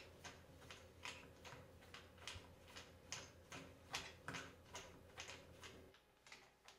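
Faint, uneven ticking, about two to three clicks a second, as a Phillips screwdriver is turned to back out the centre screw of a clear plastic shower knob. The clicks stop about six seconds in.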